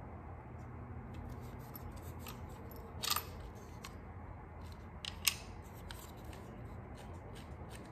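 Faint clicking and rubbing of plastic parts as the gear train and ball valve inside an electronically controlled Audi four-cylinder coolant pump are turned by hand. Two sharper clicks come about three seconds in and a little after five seconds.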